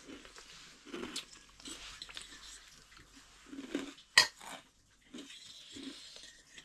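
Someone eating: chewing, with dishes and utensils clinking now and then. One sharp clink about four seconds in is the loudest sound.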